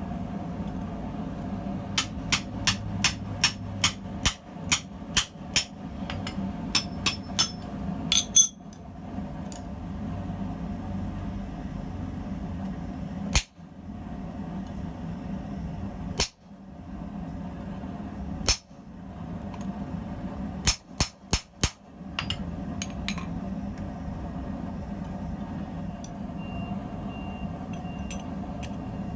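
Hammer blows on hot steel at the anvil while forging a blacksmith tong, each strike ringing sharply. A run of strikes comes about two a second, then a couple of single blows, then a quick cluster of four or five, all over a steady low hum.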